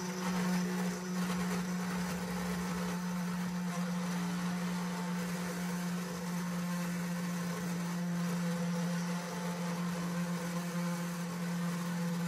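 Comgrow Robo CNC's stock spindle motor running with a steady hum at one unchanging pitch while its flat end mill cuts the first hole into a 3.5 mm thick aluminum plate.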